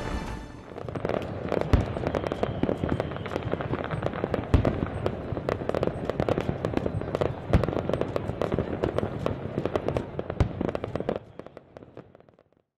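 Aerial fireworks display: a dense run of bangs and crackling, with heavier deep booms about every three seconds. It fades away near the end.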